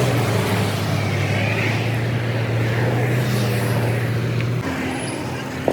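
A vehicle engine running with a steady low hum, which drops away about four and a half seconds in.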